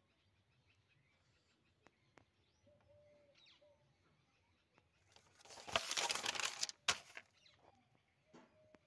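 A page of a paper exam booklet being turned: a loud rustling flap about five seconds in, ending in a sharp snap. Faint bird chirps sound in the background.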